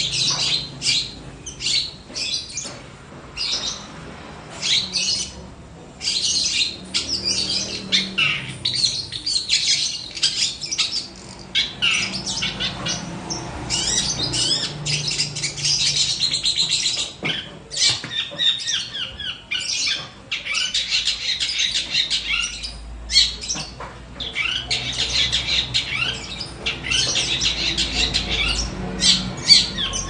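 Caged long-tailed shrike (pentet) in full song: rapid, high chattering phrases with harsh squawky notes, coming in bursts of one to a few seconds with short pauses between.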